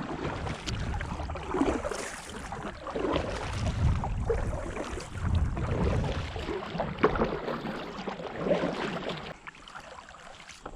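Water splashing and sloshing around a fishing kayak, with a few sharp knocks on the hull and wind rumbling on the microphone.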